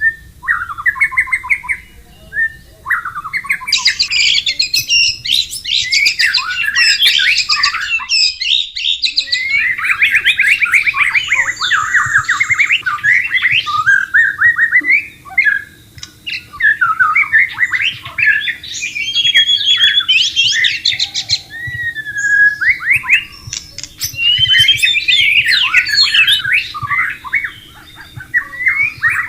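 White-rumped shama singing a long, near-continuous run of rapid, varied phrases, with a short gap about eight seconds in.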